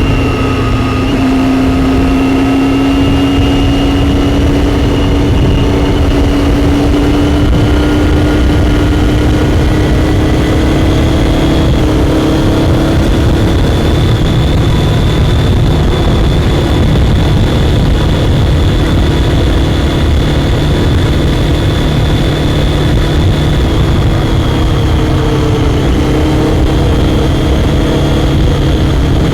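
Triumph Daytona 675's inline three-cylinder engine running at a steady cruise under load. Its pitch rises slowly, then dips a little about three-quarters of the way through, over a constant rush of wind and road noise.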